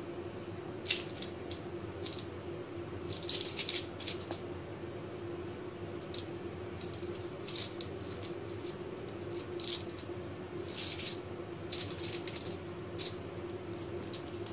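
Metal fork crimping puff pastry edges on a foil-lined baking tray: scattered light clicks and foil crinkles in short clusters, over a steady low hum.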